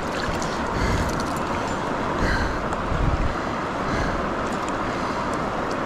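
Fast river rapids rushing steadily, with gusts of wind buffeting the microphone.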